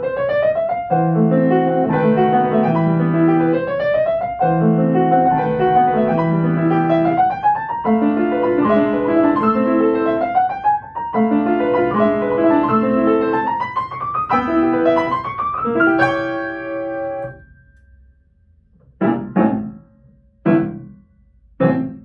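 Grand piano played solo: fast rising runs repeated over sustained chords, about one every two seconds. About seventeen seconds in the flowing passage stops, and a few short, separated chords follow with pauses between them.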